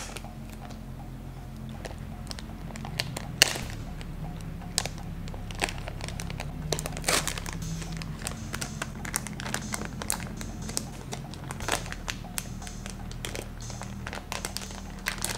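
Plastic candy bag crinkling in short, irregular crackles as it is pulled at slowly, its seal not giving way, over a low steady hum.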